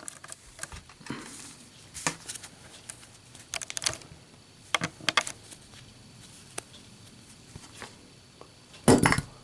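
Zippo lighter with a steel insert being dropped and handled in a drop test: scattered light metal clicks and knocks, with the loudest clatter near the end as the lighter hits and bounces.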